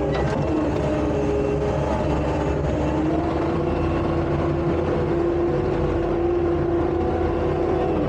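Takeuchi tracked skid steer's diesel engine running steadily under load, with a held whine that drifts slowly in pitch.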